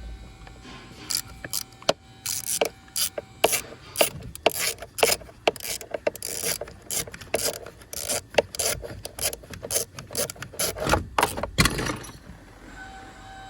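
Hammer tapping a chisel held at an angle against the soft head of a headless steering-lock security bolt, a quick irregular series of sharp taps with scraping in between, cutting a groove so the bolt can be worked loose. The tapping stops near the end.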